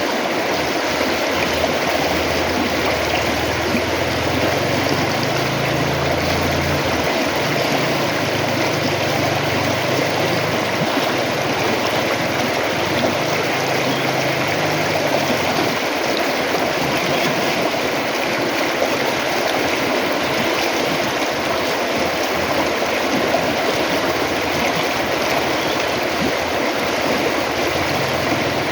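River water flowing with a steady, continuous rushing. A fainter low hum sits underneath through about the first half and returns near the end.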